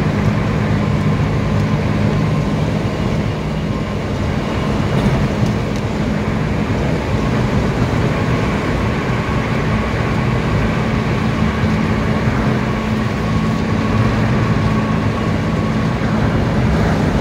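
Steady road noise inside a moving car's cabin: tyres running on a concrete highway surface, with a low, even drone underneath.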